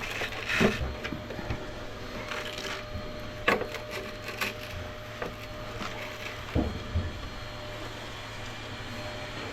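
Scattered knocks, clicks and rubbing from handling a power-wheelchair battery while its voltage is checked, over a faint steady hum.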